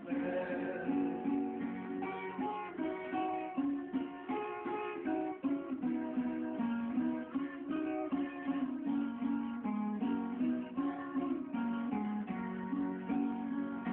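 Acoustic guitar played solo without singing: a picked melody line over a moving bass line, note after note without a break.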